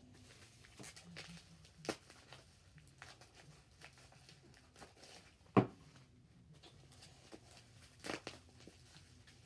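Plastic slime containers and bubble wrap being handled: faint rustling and crinkling broken by a few sharp knocks, the loudest about halfway through.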